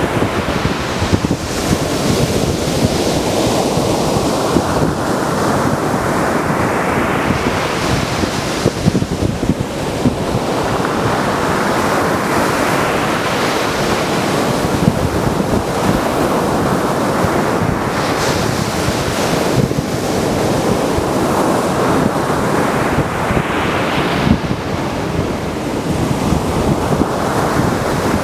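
Mediterranean surf: waves breaking on a beach one after another, each rush of foam swelling and then fading, about every five or six seconds. Wind noise on the microphone runs under it.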